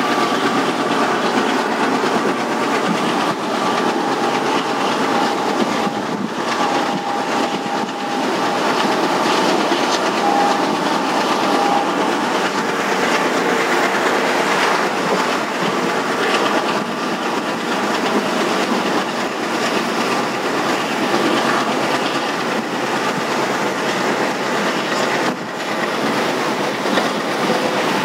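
Passenger train coach running at speed: a steady rumble and rattle of wheels on the rails with rail-joint clatter, heard from an open coach window or door, with a faint high whine over the first dozen seconds.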